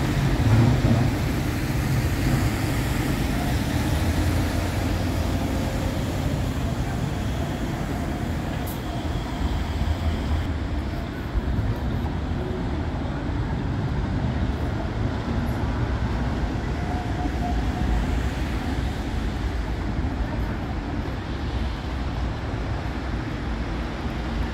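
Street-level tram pulling away from the stop, a low rumble that is loudest in the first seconds and then fades into steady road traffic noise.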